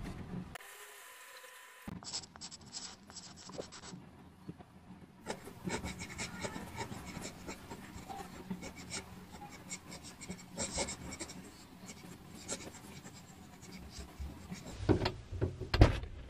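Pen writing on a postcard, the nib scratching across the card in many short strokes. Near the end, a few louder dull thumps.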